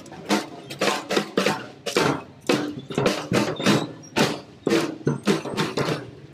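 A children's drum band beating small marching drums with sticks: a loose, uneven run of about three hits a second.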